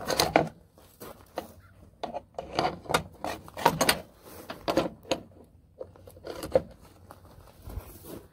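Hand tools clinking and scraping on metal in a truck's engine bay: pliers and a wrench being handled around the battery and fender, an irregular run of knocks, clanks and rubs.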